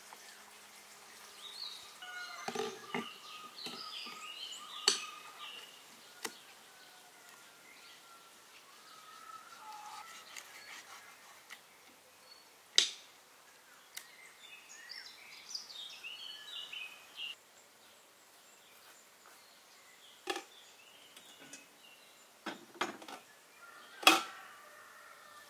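Birds chirping in the background, with a handful of sharp knocks and clinks from kitchenware being handled: bowl, cutting board, pot and kettle. The loudest is a clank near the end.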